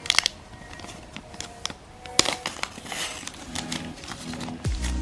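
Packaging being handled: sharp clicks and taps with a brief rustle of wrapping. Background music fades in near the end.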